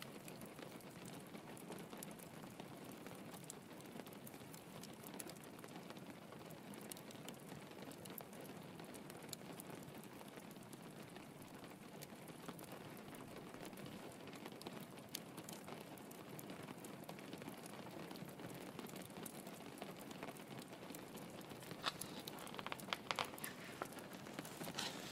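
Steady patter of rain against a window, mixed with the soft crackle of a log fire. A few louder crackles and clicks come close together near the end.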